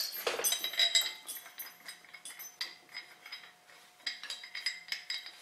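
Steel chain and lift hook of a Hoyer lift clinking as a nylon lifting strap is hooked on: a run of light metallic clinks, busiest in the first second and again near the end.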